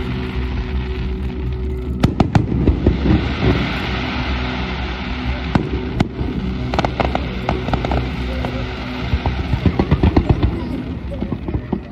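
Aerial display fireworks bursting: sharp bangs about two seconds in and again around six seconds, then a quick run of crackling reports near the end, over a steady low background rumble.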